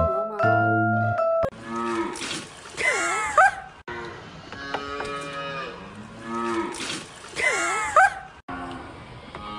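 A few notes of bell-like mallet music, then a calf mooing: two long, loud moos that bend up and down in pitch, about four seconds apart, with softer calls between them.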